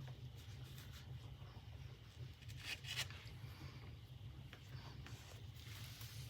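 Faint handling noises over a steady low hum: light clicks and two short rustles about three seconds in, as a fabric pouch is handled in its glued metal clasp frame.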